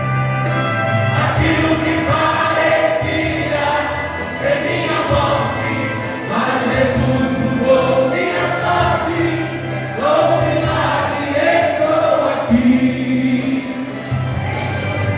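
A vocal group singing a Christian worship song together as a choir, over a backing accompaniment with a steady low bass.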